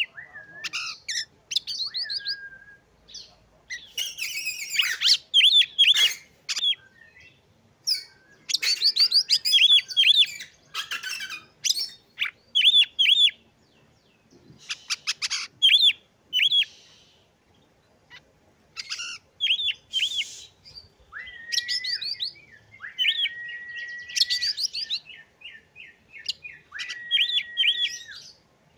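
Oriental magpie-robin singing in separate phrases: quick runs of short notes sweeping sharply up and down, some harsh, scratchy phrases, and in the second half several long whistles held level on one pitch.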